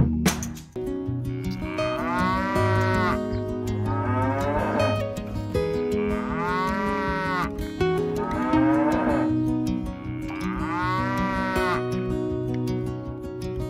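Cattle mooing, five drawn-out calls about two seconds apart, over background music with steady notes.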